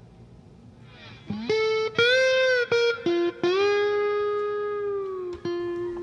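Background music: a guitar comes in after about a second, playing a few long notes that slide and bend in pitch, with short notes in between.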